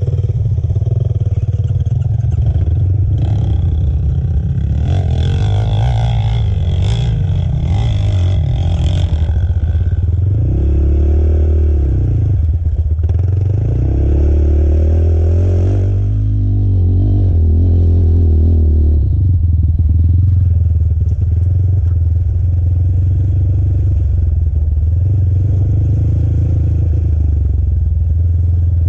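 Single-cylinder sport quad engine running hard under the rider, its pitch rising and falling as the throttle is worked, with a spell of clatter from loose gravel a few seconds in.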